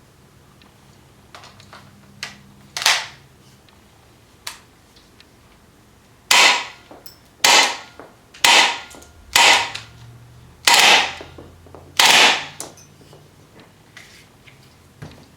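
Kmp9R gas-blowback airsoft submachine gun fitted with a 6-inch amplifier, fired six times about a second apart, each shot a sharp crack with a short ringing tail from the amplifier. A few light handling clicks and one louder crack come first.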